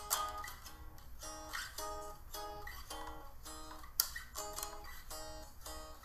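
Acoustic guitar music: plucked notes and strummed chords in a steady rhythm, with one sharp, loud strum about four seconds in.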